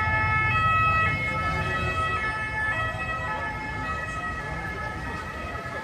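Emergency vehicle's two-tone siren switching between two pitches about twice a second, fading as it moves away, over the low rumble of street traffic.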